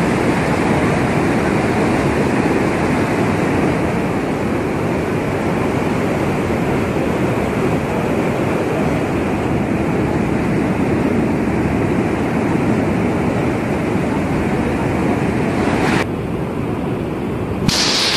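Floodwater pouring through the open sluice gates of a river barrage: a loud, steady rush of water. About sixteen seconds in it briefly turns duller, then comes back brighter and hissier near the end.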